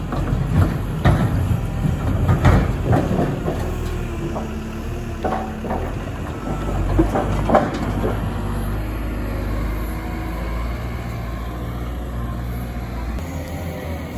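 Komatsu WA200 wheel loader's diesel engine running steadily, with loud knocks and clatter of split firewood tumbling in the rotating Flipscreen WL130 screening bucket during the first eight seconds, easing off after that.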